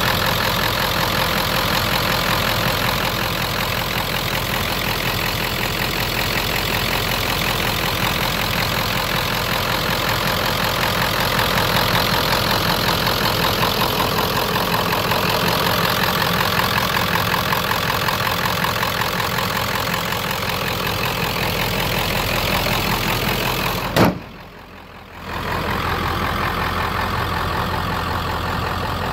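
Ford 7.3 Powerstroke V8 turbo diesel idling steadily. A few seconds before the end there is one sharp click and a brief dip in level, and then the idle carries on with a deeper low end.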